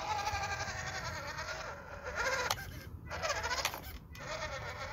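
Small electric RC crawler truck (WPL B24 KM) climbing over rocks, its motor and gearbox whining and rising and falling in pitch with the throttle. The whine dips out briefly about three seconds in and again about four seconds in.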